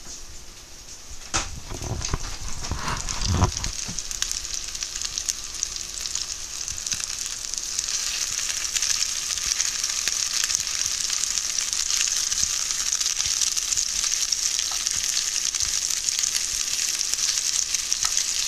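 Meatballs frying in hot oil in a frying pan, a steady sizzle that grows stronger after the first few seconds. In the first few seconds there are a few knocks and low thumps.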